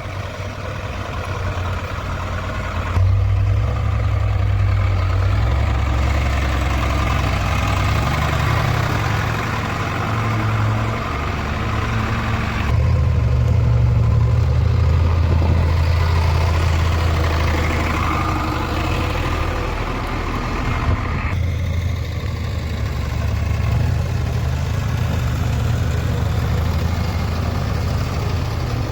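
Diesel engine of a JCB 3DX backhoe loader running steadily as the machine travels, a deep continuous note that shifts abruptly in loudness and tone a few times.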